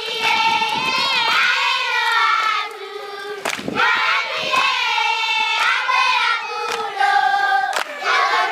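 A group of children singing together in chorus, with a few hand claps among the phrases.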